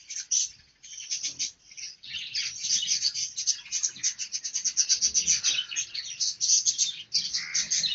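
Many small birds chirping rapidly and continuously, a dense chorus of short, high chirps that thins briefly about a second in and again about two seconds in.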